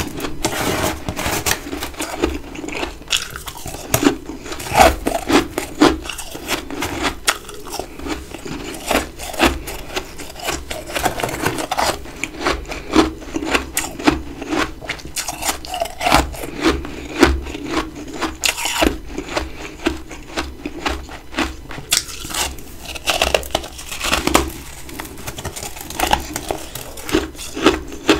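Close-miked biting and chewing of big chunks of freezer frost, a run of irregular crisp crunches and crackles with louder bites every second or so.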